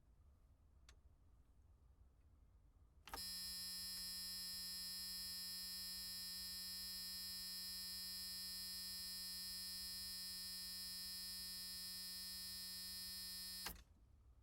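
A buzzer sounding one long, steady buzz that starts suddenly about three seconds in, holds an unchanging pitch for about ten seconds, and cuts off sharply.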